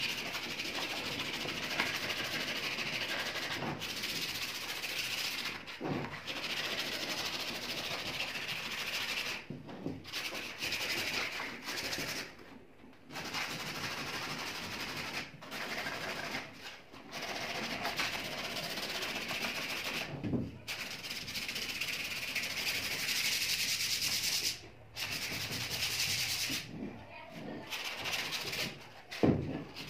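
A hand-held pad rubbing back and forth along a wooden shotgun stock, a continuous dry hiss broken by a few short pauses, with a few soft bumps as the stock is handled.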